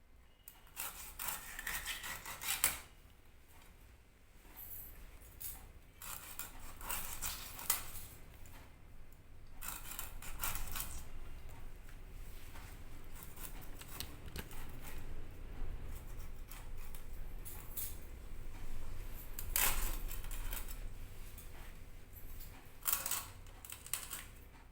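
A blade scraping and cutting a whole hilsa fish. The strokes come in spells of a second or two, with short pauses between.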